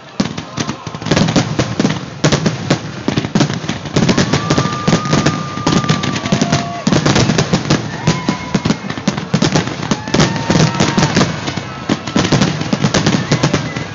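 A fireworks display banging and crackling in a dense, continuous barrage of rapid reports, with a few long steady whistles over it near the middle.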